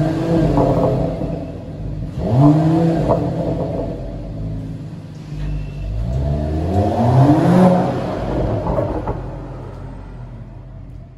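Mercedes-AMG E53 Coupé's 3.0-litre turbocharged straight-six revving up three times, the engine note climbing and dropping, the last a longer climb. The sound then fades away.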